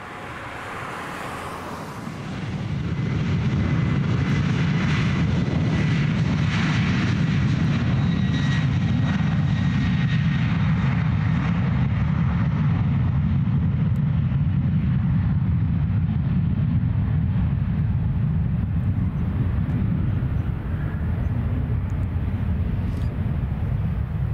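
Boeing 737 jet engines with a deep, steady rumble that swells up about two seconds in. A faint whine is heard for a few seconds early on, and the hiss thins out gradually as the jet draws away.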